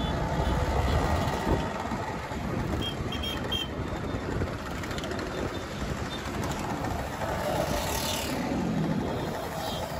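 A column of motor scooters, classic and modern, riding past one after another with their engines running, the noise swelling as each one passes. A few short high beeps sound about three seconds in.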